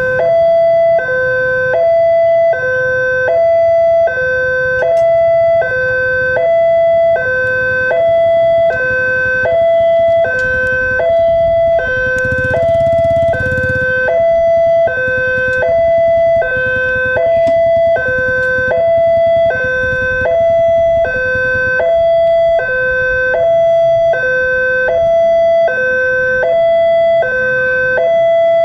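Indonesian railway level-crossing warning alarm sounding a continuous two-tone electronic hi-lo signal, a higher and a lower tone alternating about every 0.85 s, warning that a train is approaching.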